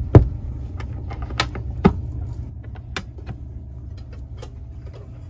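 A few sharp knocks and clicks, the two loudest right at the start and fainter ones spread over the next few seconds, over a steady low rumble.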